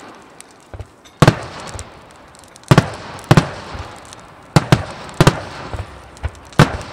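Aerial fireworks bursting, a series of sharp booms roughly a second apart, each trailing off in a rolling echo.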